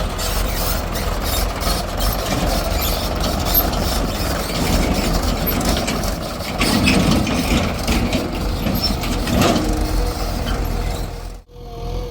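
Heavy diesel machinery running steadily, a backhoe loader working alongside tractors, with scattered sharp knocks and clanks. Near the end the sound cuts off abruptly and a steady wavering tone begins.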